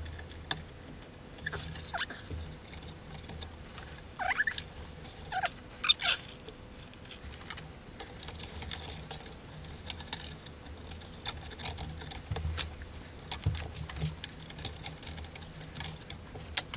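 Scattered small clicks, taps and rustles of hands handling wiring and parts inside a cassette deck's metal chassis, with a few short squeaks that fall in pitch, over a faint steady low hum.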